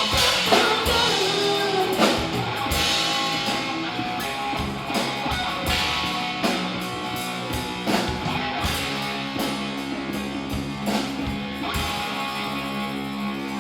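Live bar band playing a country-rock song: a singer's voice over electric guitar, bass and drum kit in the first seconds, then the band playing on without vocals, a little quieter toward the end.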